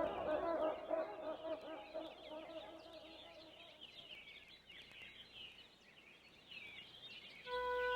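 Birds calling: lower pitched calls that fade out within the first few seconds, and many quick high chirps that thin out toward the end. About seven seconds in, music with held notes begins.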